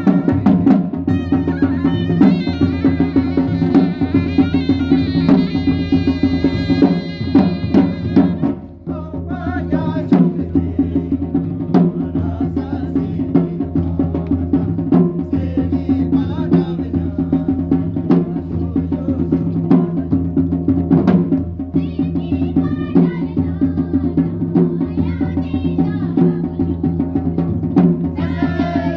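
Live Ladakhi folk music: a surna (reed pipe) plays a melody over steady beating on daman drums. There is a short break about eight seconds in.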